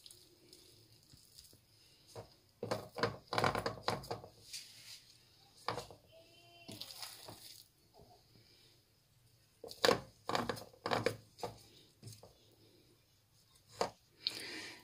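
A spoon scooping the moist cornmeal cuscuz mixture from a pot and packing it into an aluminium ring mould: irregular clusters of scraping, clinking and soft knocks, with quieter gaps between them.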